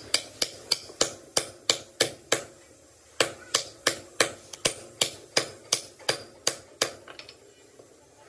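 A hand hammer striking metal repeatedly, about three sharp blows a second, with a short pause after the first eight and the blows stopping about a second before the end.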